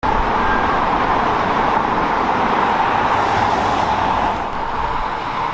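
Steady road traffic noise from passing vehicles, easing slightly about four seconds in.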